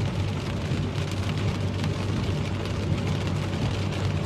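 Car driving on wet roads in heavy rain, heard from inside the cabin: a steady hum of engine and tyre noise with the hiss and patter of rain.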